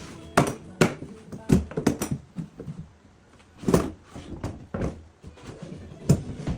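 Irregular knocks and thuds of wooden pieces being set down or struck together, about eight in all and unevenly spaced.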